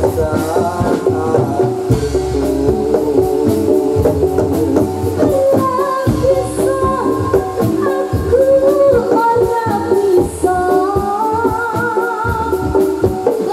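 Live Javanese jathilan dance music: a percussion-driven ensemble with drums and a jingling tambourine-like beat under a singer's wavering melodic line.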